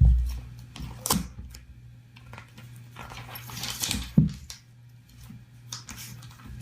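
A pet cat pawing at a paper magazine: a few sharp knocks and some rustling over a steady low hum.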